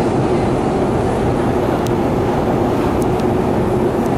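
Long metro escalator running: a steady mechanical rumble with a constant low hum, and a few faint ticks.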